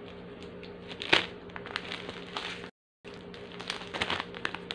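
Plastic wrapper of a Cream-O biscuit packet crinkling and crackling as it is handled and torn open, in a few quick clusters, the sharpest crackle about a second in.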